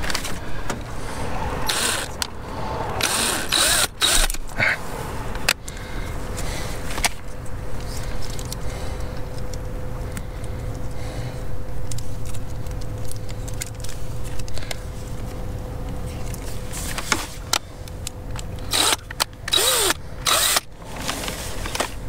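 Power drill running in spells, mixed with knocks and clatter from working on a car door.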